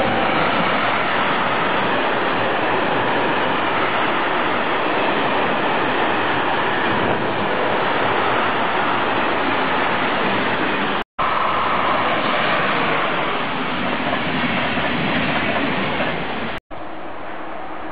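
Freight train of tank wagons rolling past close by, with a steady loud rumble and rattle of wheels on the rails. It breaks off in two brief silent gaps, and after the second one, near the end, it is much quieter.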